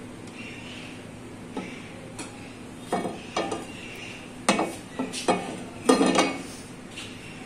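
Metal spoon and frying pan clinking and knocking as oil is spread around the pan: scattered knocks, with the loudest cluster from about halfway through to about six seconds in.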